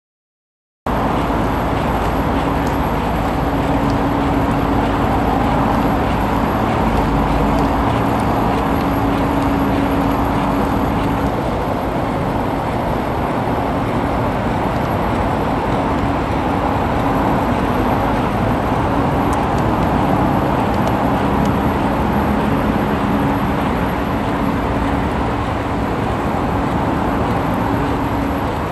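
Steady outdoor background rumble, with a low hum that fades in and out; it starts abruptly about a second in.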